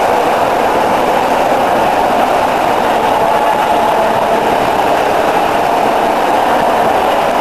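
Steady, even rushing noise at a constant level, with no separate splashes or knocks standing out.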